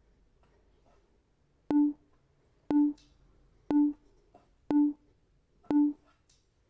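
Five short, identical low-pitched electronic beeps, about one a second, from a workout interval timer counting down the last seconds of a 30-second exercise.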